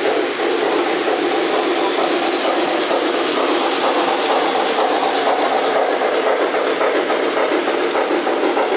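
Model train, a steam locomotive pulling streamlined passenger cars, running on the layout's metal track with a steady rolling rumble of wheels on rail.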